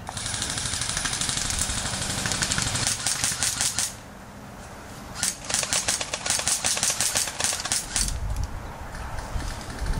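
Airsoft guns firing rapid full-auto bursts, one over the first four seconds and another from about five to eight seconds in, with a low rumble near the end.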